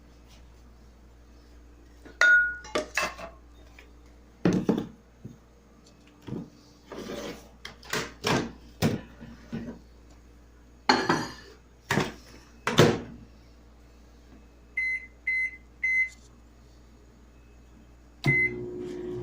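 Dishes and utensils clattering and knocking against each other, then a microwave oven's keypad beeping three times. A fourth beep follows, and the microwave starts running with a steady hum.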